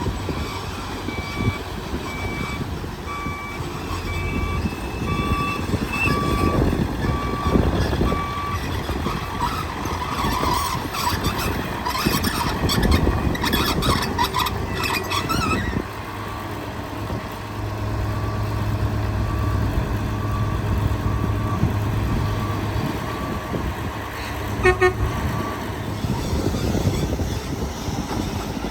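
Heavy diesel construction machinery running, with a reversing alarm beeping at an even pace through most of it. From about twelve to fifteen seconds in there is a stretch of loud metallic clanking and rattling.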